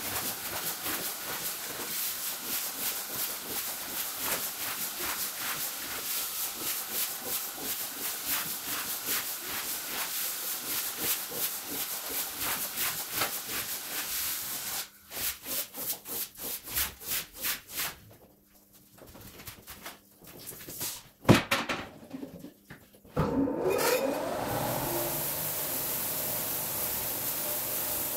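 Sped-up rug washing: rapid, rhythmic scraping strokes of a long-handled squeegee pushing foam over a wet rug, then a few slower strokes and a single sharp knock. Near the end comes the steady hiss of a pressure-washer spray on the wet floor.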